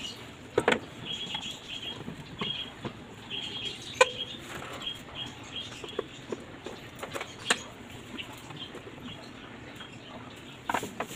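Sharp clicks and knocks of a socket wrench on a long extension being worked in a car's engine bay, the loudest knock about four seconds in. Small birds chirp in the background during the first few seconds.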